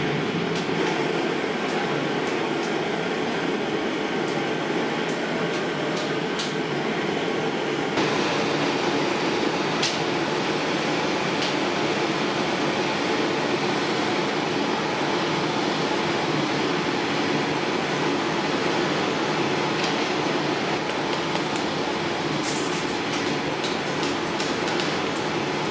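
Hose-fed gas torch burning with a steady, continuous rushing noise, the flame used to heat cane for bending. A few faint taps sound over it.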